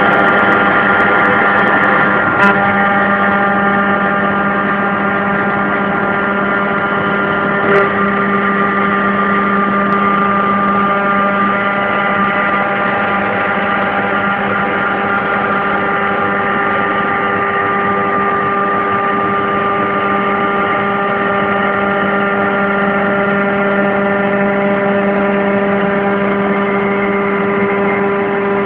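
CNC milling machine cutting aluminium: a steady whine from the spindle over the noise of the cutter in the metal, with a few short clicks.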